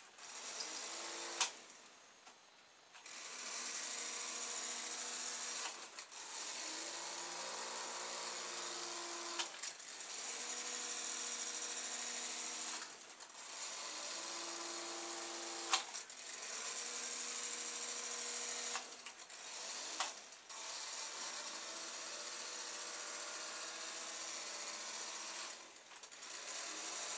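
Two small electric motors from a cheap RC toy car spinning ice-lolly-stick propellers on a foam airboat, whirring in runs of a few seconds that stop and restart, the hum changing pitch from run to run. A few sharp clicks stand out, one near the start and one a little past halfway.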